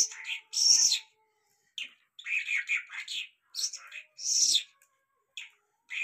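Caged Irani jal songbird singing: quick runs of high chirps and trilled notes in short phrases, broken by brief pauses, the longest about half a second near the end.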